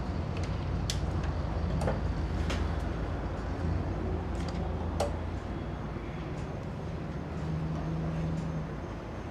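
A steady low rumble with a few sharp clicks scattered through it; the clicks come from typing on a computer keyboard and clicking a mouse.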